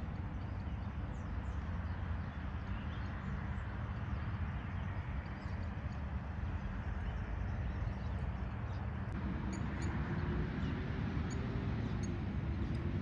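Outdoor background noise, a steady low rumble with hiss, with faint short bird chirps, more of them in the second half. A faint steady hum comes in about nine and a half seconds in.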